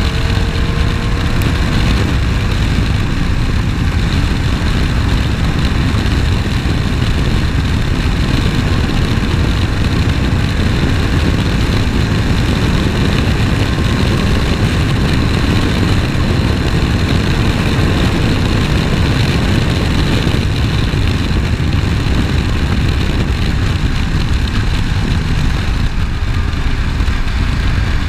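Onboard sound of a Skip Barber open-wheel formula car lapping at speed. Its engine runs steadily under a dense low rumble of wind and road noise, with no breaks.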